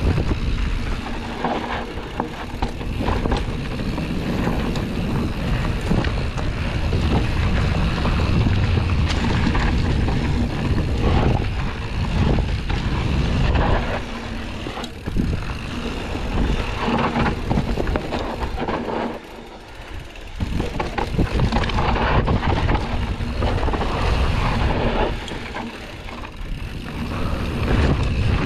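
Wind buffeting an action camera's microphone as a Canyon Strive full-suspension mountain bike descends a dry dirt trail, with tyre noise and a constant clatter of short knocks and rattles from the bike over the bumps. The noise drops briefly about two-thirds of the way through.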